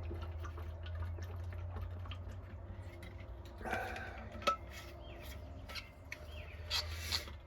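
A person drinking a glass of ice water: small clinks and clicks of ice against the cup, a sharper clink about four and a half seconds in, and a couple of gulps near the end.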